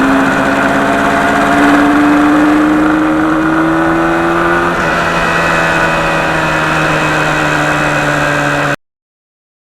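1977 Yamaha RD400's two-stroke twin engine running under way, its pitch climbing slowly, dipping a little about halfway through, then holding steady. The sound cuts off suddenly near the end.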